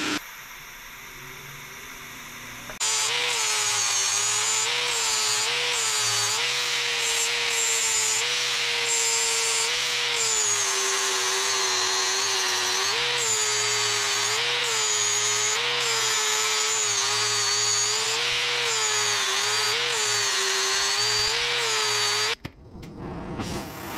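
Festool angle grinder working the face of a metal plaque held in a bench vise, starting about three seconds in and cutting off shortly before the end. Its motor pitch dips again and again as it is pressed onto the metal, then picks back up when the pressure eases.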